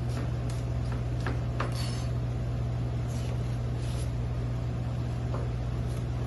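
A chef's knife chopping green onion on a plastic cutting board, the blade tapping the board at an uneven pace, over a steady low machine hum.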